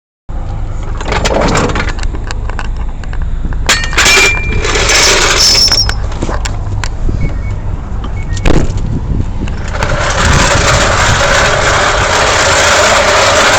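Vehicle engine idling, with scattered knocks and clunks and a brief high squeal about four seconds in; from about ten seconds in a steady broad rushing noise, like passing traffic or wind, covers it.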